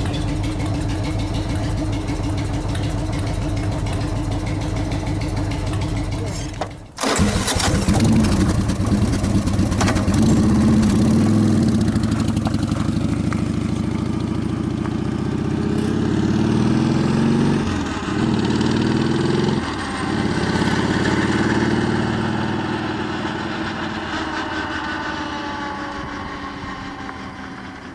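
A car engine running through sidepipe exhausts. It idles steadily, then about seven seconds in it cuts out for a moment and comes back much louder, revving with rising and falling pitch and two brief drops, like gear changes. It then fades off gradually.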